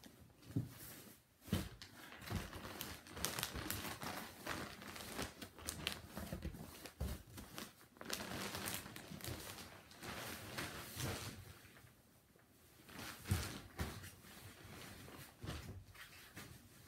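Rustling and crinkling as things are handled close to the microphone, going on irregularly, with a few sharp knocks. It goes quieter briefly about twelve seconds in.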